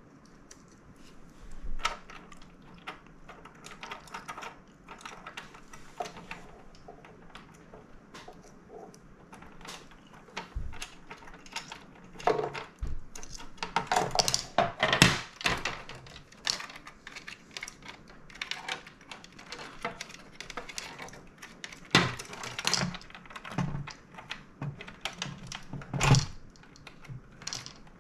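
Hard plastic parts of a Teenage Engineering PO-80 Record Factory kit being handled: scattered clicks, taps and knocks as its housing is lifted and its wires routed. A dense run of louder knocks comes about halfway through, and a few sharp single knocks near the end.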